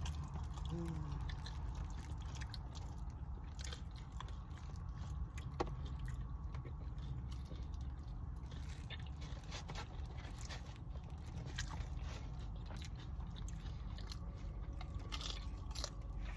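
Close-up chewing and biting of tacos and nachos, with occasional small crunches and mouth clicks, over a steady low hum.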